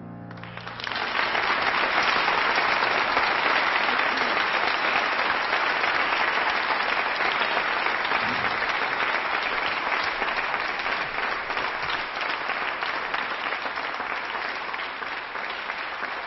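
Audience applauding, starting about a second in as the last piano chord dies away, then slowly easing off.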